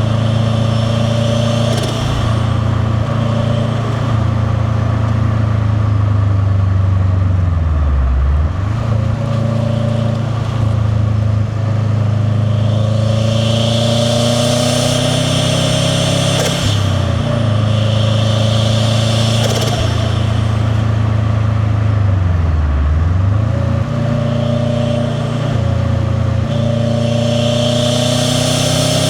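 Turbocharged Subaru flat-four boxer engine in a 2001 WRX STi driving along, with its rumbling exhaust through a catless downpipe and titanium catback. The engine note dips twice and climbs again, and a high turbo and intake whistle comes in for stretches when it is on boost.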